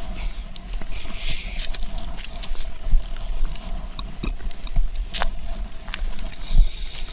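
Rustling and knocking handling noise on a camera-mounted microphone with scattered footsteps, as a hiker climbs a steep dirt trail.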